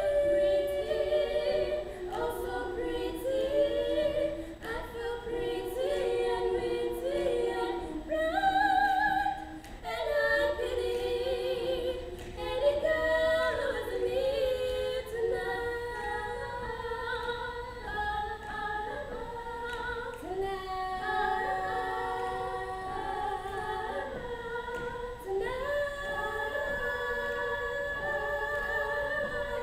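A mixed school glee club of boys and girls singing a cappella in parts, several voices holding chords that shift every second or two.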